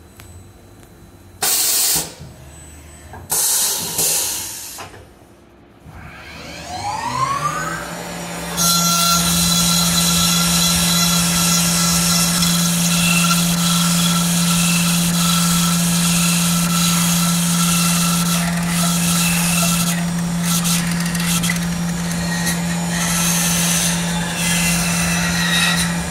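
Tormach 1100MX CNC mill: a few short loud blasts of noise in the first seconds, then the spindle spins up with a rising whine about six seconds in and settles into a steady whine and hum as the end mill cuts the aluminum plate under coolant spray.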